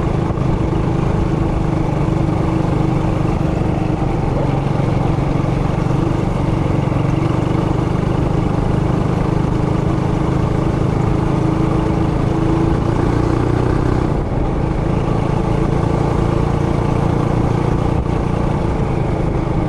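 Trailmaster Hurricane 200X mini bike's single-cylinder four-stroke engine running steadily under way at cruising speed. The engine note holds even, with one brief let-off about two-thirds of the way through.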